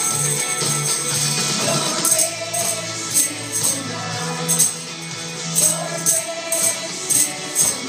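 Upbeat Christian worship song with a singing voice, and handheld tambourines jingling along. The tambourines are shaken steadily at first, then struck in time with the beat from about two seconds in.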